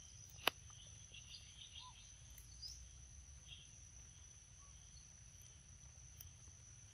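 Faint outdoor ambience: a steady, high insect drone, a few faint bird chirps, and one sharp click about half a second in.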